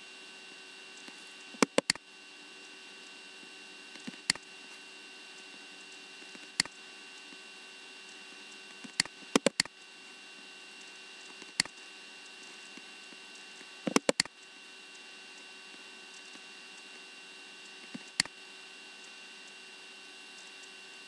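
Computer mouse clicking: single clicks and quick double clicks every few seconds, over a steady electrical hum.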